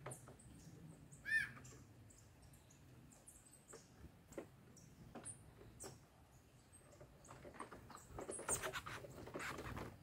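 Small songbirds calling at a fruit feeder: one loud arched chirp about a second in, then scattered short chirps and clicks that grow busier and louder near the end.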